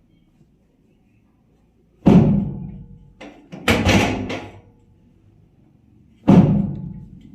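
Chiropractic thrusts on the back of a patient lying face down. A heavy thud about two seconds in and another just after six seconds, each fading slowly, with a quick run of sharp cracks between them.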